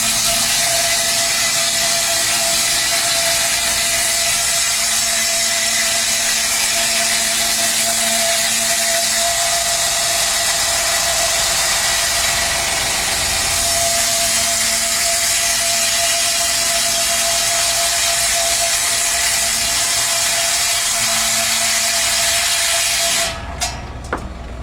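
Sawmill saw cutting coconut lumber: a steady whine over a loud hiss that holds evenly, then cuts off abruptly near the end, followed by a couple of sharp knocks.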